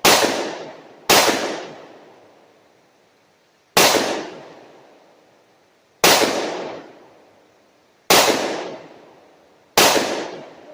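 Six gunshots from a firearm fired at targets, one shot every one to two and a half seconds as the shooter keeps pulling the trigger to empty the gun. Each shot is a sharp crack whose echo trails off over about a second.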